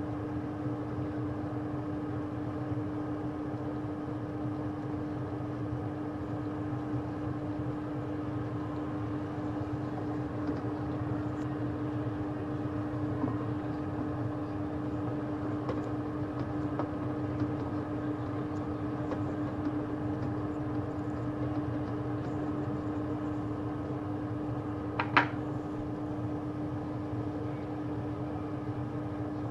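Steady mechanical hum of kitchen equipment with one low, even tone running under it. A single sharp clink rings out once near the end.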